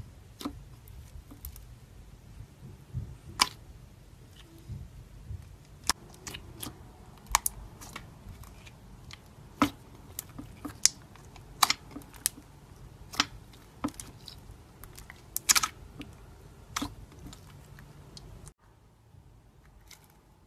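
Clear jelly slime filled with beads being squeezed and kneaded by fingers, giving irregular sharp pops and clicks. The sound drops away suddenly near the end.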